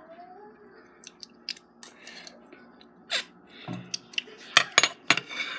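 A metal spoon clicking and scraping against a ceramic mug while cake is eaten from it, with chewing and mouth sounds. The clicks are sharp and scattered, and the loudest come close together near the end.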